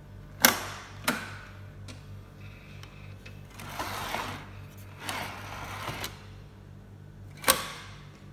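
Plastic parts of an HP colour laser printer's toner cartridge bay being handled: sharp clicks about half a second and a second in, two longer sliding scrapes in the middle as a toner cartridge is moved in the bay, and a loud click near the end. A steady low hum runs underneath.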